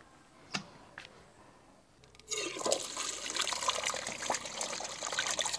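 Water running into a stainless steel bowl of cut potato sticks to rinse them; the flow starts about two seconds in, after a near-quiet stretch with a couple of faint clicks.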